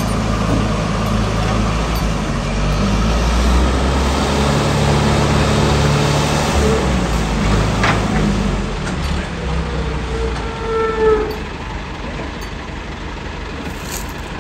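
Heavy diesel engine running, its revs stepping up and down, with a brief high-pitched squeal about eight seconds in and short tonal whines around ten to eleven seconds in, the loudest moment; the engine settles lower near the end.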